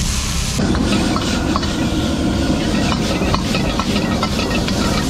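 Steady rush of a wok stove's gas burner with food sizzling in the wok; about half a second in it gets fuller and lower. Against it a metal ladle scrapes and clinks on the carbon-steel wok as the meat and cabbage are tossed.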